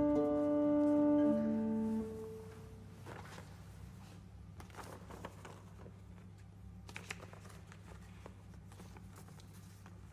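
A final held chord on chamber organ with lute continuo, steady unwavering tones, ends about two seconds in. Faint rustling and a few small knocks follow, sheet music being handled on a stand.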